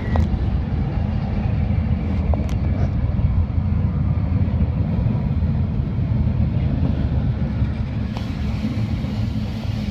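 Two freight trains passing close by on adjacent tracks: the steady heavy rumble of CSX diesel locomotives and rolling wheels, with a few brief sharp clicks from the rails.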